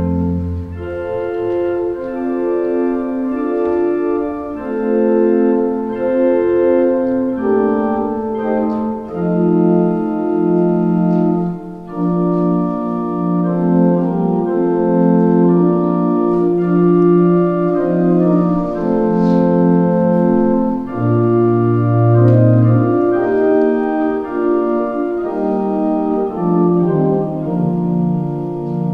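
Organ music: slow, held chords that change every second or so, with low bass notes sounding at the start and again about two-thirds of the way through.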